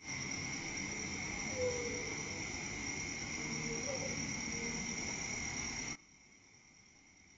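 Crickets and other night insects chirping steadily at two high pitches, under a loud hiss. The hiss cuts off suddenly about six seconds in, leaving the insects quieter.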